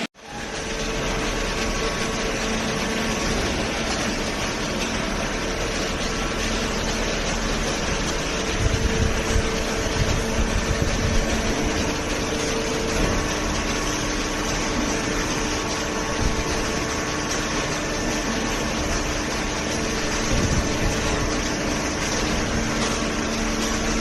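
Hydraulic cardboard baler running: the steady hum of its electric motor and hydraulic pump, with a few constant tones, and some louder irregular rattling about a third of the way in.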